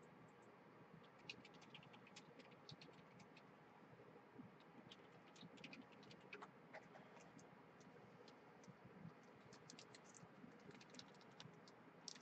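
Faint, irregular clicking of computer keys being typed on.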